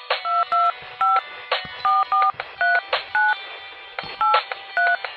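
Phone keypad being dialled: nine short two-note touch-tone beeps at uneven intervals, with clicks between them.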